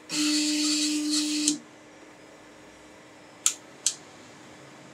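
3D printer stepper motors driving the toolhead with a steady whine for about a second and a half, then two sharp clicks close together a couple of seconds later as the bed probe triggers during quad gantry leveling.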